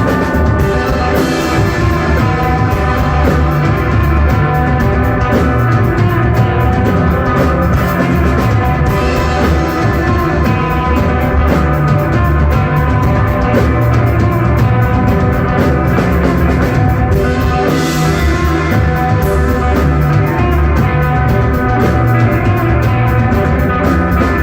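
Rock band playing live: electric guitar and drum kit in a loud, steady instrumental psychedelic desert-rock passage.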